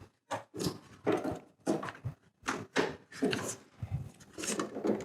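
Poultry drinker saucer being pressed onto the legs of its base: a series of short clicks, knocks and scrapes, about two or three a second, as the parts click into place.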